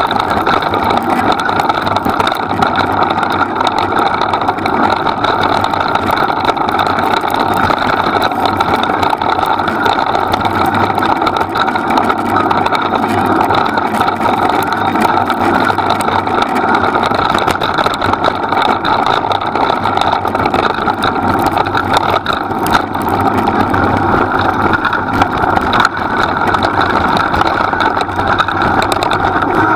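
Small engine of the vehicle that the dogs pull, running steadily at a low, even speed and heard from on board, slowing down right at the end.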